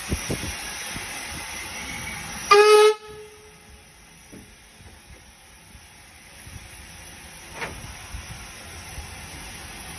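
Steam locomotive whistle giving one short blast of about half a second, signalling the train's departure, between the steady hiss of escaping steam.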